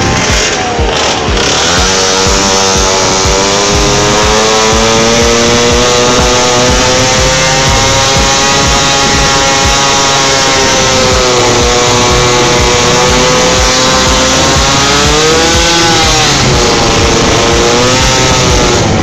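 Loud two-stroke engine of a Yamaha Jog scooter with a tuned expansion-chamber pipe, running under way. The engine note holds mostly steady, then rises and falls briefly about three-quarters of the way through.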